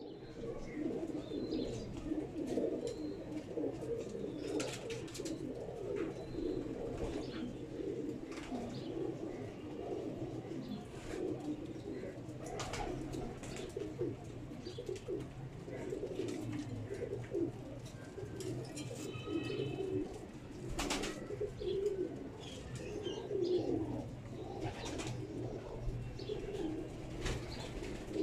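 Domestic Imam Deen flying pigeons cooing continuously in the loft, several low coos overlapping. A few short sharp clicks stand out.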